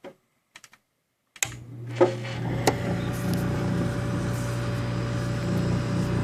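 Coleman Evcon gas furnace starting up: a few light clicks, then about a second and a half in a fan motor switches on and runs with a steady hum, with two sharp clicks soon after it starts.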